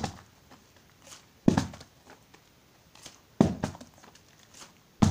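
A partly filled plastic bottle thrown in bottle flips, hitting a carpeted floor with a dull thud roughly every two seconds, each thud followed by a brief tumble.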